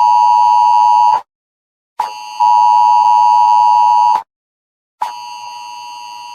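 Emergency alert tone: a harsh, steady electronic beep near 1 kHz sounding in long blasts of about two seconds with short silent gaps between them. The last blast is quieter than the others.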